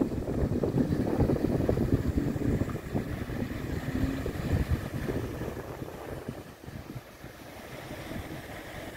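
Wind buffeting the phone's microphone over the rush of the swollen Danube flowing past a moored ship's hull. The gusts are strongest at first and ease off about halfway through.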